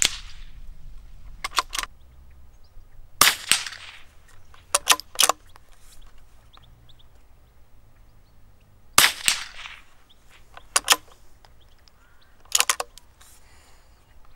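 Four .22LR rifle shots, from a Weihrauch HW66, spaced a few seconds apart, each trailing off in a short echo. About a second and a half after each of the first three shots come two short, quieter clicks.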